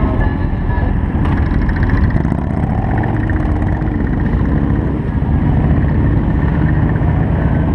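Several motorcycle engines running at a traffic light, then the group pulls away through the intersection.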